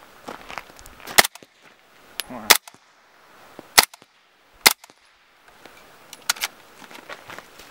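Heckler & Koch MP5K 9mm submachine gun firing single suppressed shots through a Gemtech Multimount suppressor, with subsonic ammunition. Each shot is a short, sharp report, spaced one to one and a half seconds apart, with two in quick succession near the end.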